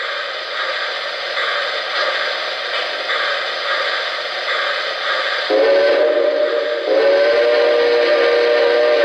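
Lionel O-gauge model steam locomotive's RailSounds: slow steam chuffing about every 0.7 s over the rolling of wheels on three-rail track. A chime steam whistle then sounds twice, a shorter blast about five and a half seconds in followed by a longer one.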